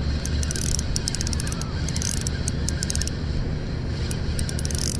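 Small spinning reel clicking in quick runs of ticks while a hooked squid pulls against a bent ultralight rod: two runs in the first two seconds, a pause, then a short run near the end. A steady low rumble of wind on the microphone runs underneath.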